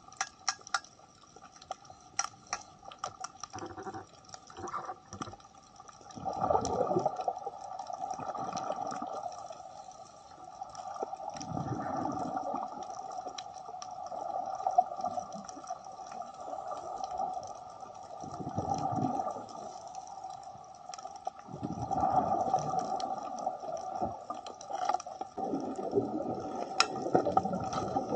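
Underwater sound of a scuba diver's regulator breathing: bursts of exhaled bubbles gurgling every few seconds, over a steady hum and scattered sharp clicks.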